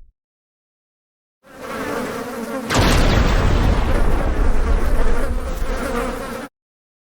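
Sound effect of buzzing flying insects, a swarm-like drone that starts about a second and a half in, grows louder and fuller about a second later, and cuts off suddenly near the end.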